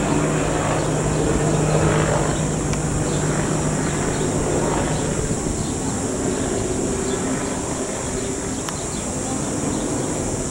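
Mexican Navy military helicopter with a five-blade main rotor flying overhead. Its rotor and turbine drone is steady, with a low hum that eases about halfway through, and the whole sound grows slowly fainter.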